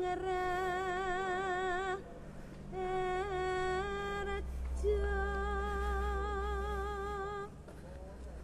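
A high voice humming three long held notes with a wavering vibrato, each note lasting about two seconds with short breaks between, over a low steady hum.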